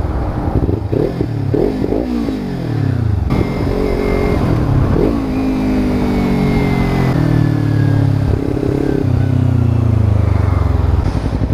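Kawasaki Ninja 300's parallel-twin engine, loud through an Akrapovic slip-on exhaust with its noise killer removed. For the first few seconds it is revved up and down in quick blips. Then it runs in longer notes whose pitch slides slowly downward.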